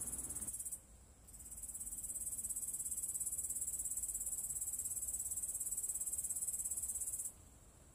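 Crickets chirring in a high, fast, steady trill; it drops out about a second in, swells back, and stops abruptly near the end.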